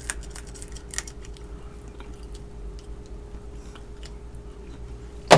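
Close-up eating of crab legs: soft chewing and sucking at the shell with a few small clicks, then a sharp click near the end, over a steady low hum.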